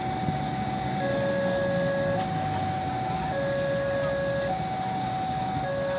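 Railway level crossing warning alarm: an electronic two-note tone alternating high and low, each note held a little over a second, over a steady low rumble. It signals that the crossing is closed while a train is due.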